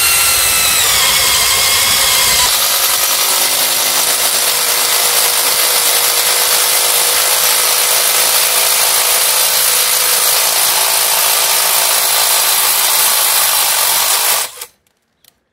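Milwaukee M12 Fuel 3453 cordless impact driver on its second speed setting, running under load as it drives a Klein impact-rated step drill bit through 4 mm steel channel. The motor's whine drops in pitch about a second in as the bit bites into the steel. The noise then runs steadily until it cuts off suddenly about a second before the end, as the hole is finished.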